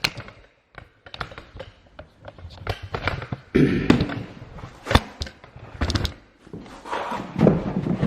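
Plastic knocks, clicks and scraping of a Ridgid wet/dry shop vacuum being opened up and handled: lid and filter parts thudding and rubbing, with a few sharp clicks.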